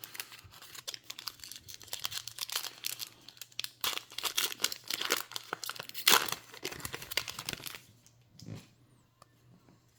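Foil wrapper of a hockey card pack being torn open and crinkled: a dense run of crackles for about eight seconds. A single thump follows near the end.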